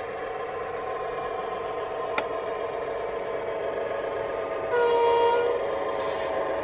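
Sound-equipped (DCC) model of an Irish Rail A class diesel locomotive, its onboard decoder playing a steady diesel engine run through the model's small speaker. A sharp click comes about two seconds in, and a horn blast of under a second, the loudest sound, comes near the end.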